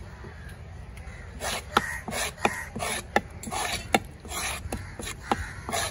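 A large fish-cutting knife scraped in repeated strokes across the top of a wooden chopping block, clearing off fish scraps. The strokes start about a second and a half in and come about two a second, each with a sharp knock of the blade on the wood.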